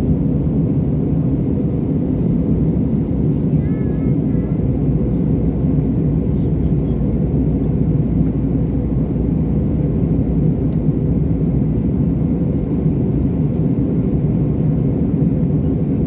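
Airliner cabin noise in flight: a steady, deep drone of jet engines and rushing air with a faint constant hum, holding an even level throughout.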